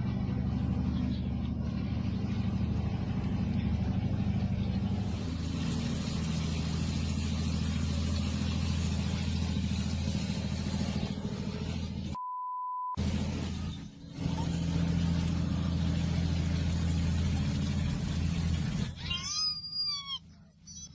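A car engine running under a steady hiss of rushing water. About twelve seconds in it is cut by a one-second censor bleep. Near the end comes a brief wavering high-pitched sound.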